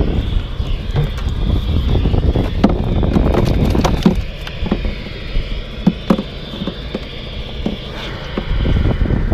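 Wind buffeting the microphone with a heavy low rumble that eases for a few seconds midway. Scattered knocks and clicks come from handling the caught rockfish and tackle at an open plastic cooler.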